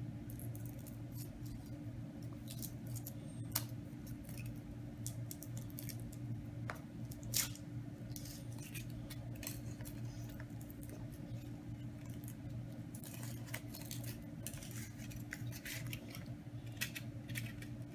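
Foil wrapper of a Kinder Surprise chocolate egg crinkling and crackling as small hands peel it off, with a couple of sharper clicks and a denser patch of crackling near the end, over a steady low hum.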